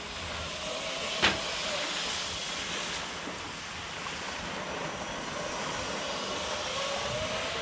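Steady rushing hiss of a cable-towed wakeboard skimming across lake water, mixed with wind, with one sharp click about a second in and a faint thin whine near the end.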